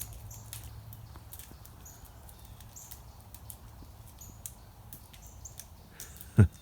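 A cat's claws scratching and tearing at tree bark, heard as faint scattered scratchy ticks, while small birds chirp briefly and high about every second. A short, loud sound with a falling pitch comes near the end.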